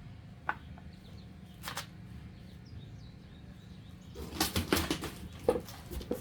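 Handling noise: rustling and clicking as something is moved about. There is one click about half a second in and a short rustle a little later, then a quick run of rustles and knocks over the last two seconds.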